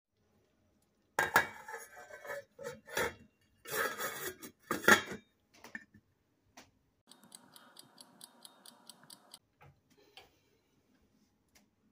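Stainless steel pot lid clanking and clattering against the pot and stovetop for a few seconds. Then a quick run of light, even clicks, about five a second, as the stove's digital timer is stepped up to 30 minutes.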